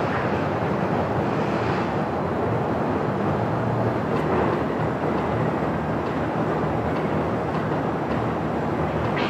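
Steady mechanical rumble of steel-shop machinery, even and unbroken, with no distinct impacts.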